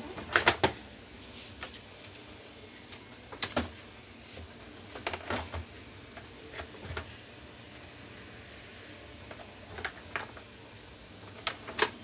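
Scattered sharp metal clicks and clinks of hand tools on a box fan's centre hub and blade guard, as the hub is worked loose to get at the motor bushing: a cluster about half a second in, another near three and a half seconds, a few around five seconds, and more near the end.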